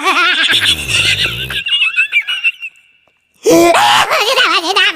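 High-pitched cartoon Minion voices laughing and squealing, with a low rumbling fart sound effect early on. The sound drops out briefly around three seconds in, then the high-pitched laughter starts again.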